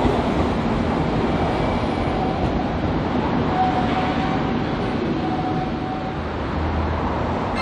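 Semboku Rapid Railway electric commuter train running on the rails, a steady dense rumble of wheels and running gear, with a faint high tone coming and going midway.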